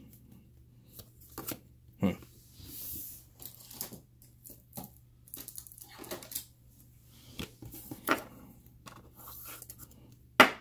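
A trading card being slid in and out of a clear rigid plastic top loader: a scraping hiss of card against plastic about two seconds in, and scattered sharp plastic clicks and taps, the loudest near the end.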